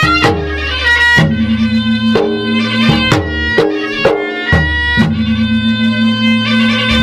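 Traditional Makassarese gendang adat music: drums beaten in a quick, uneven pattern of sharp strikes and deep thuds under a shrill reed wind instrument holding a nasal melody that shifts pitch every second or so.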